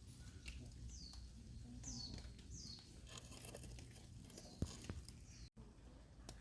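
A small bird calling: three quick chirps, each falling in pitch, about a second apart, with a sharp click a little after the middle and a few faint knocks.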